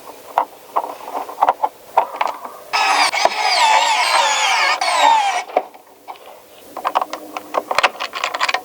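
Handling of RC truck kit parts: a run of sharp clicks and taps, with about three seconds of squeaky, wavering rubbing in the middle.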